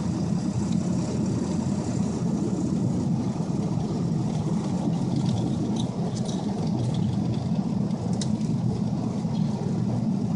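Steady engine and tyre noise of a 2002 Ford F-250 pickup driving through deep snow, heard from inside the cab. A few faint clicks sound now and then.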